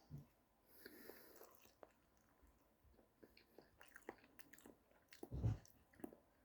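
Faint chewing of a mouthful of Cheetos mac and cheese, heard as scattered small mouth clicks, with one louder low mouth sound about five seconds in.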